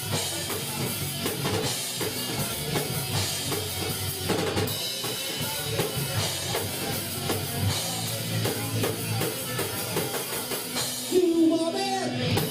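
Live rock band playing an instrumental passage, the drum kit driving it with kick and snare under guitars. Singing comes back in near the end.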